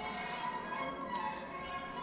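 Orchestral background music from a children's TV programme playing on a television, with string instruments holding steady notes. Two light clicks sound close together about a second in.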